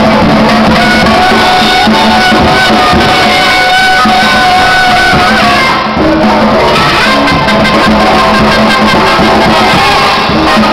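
Street brass band playing loudly, with trumpets and a sousaphone.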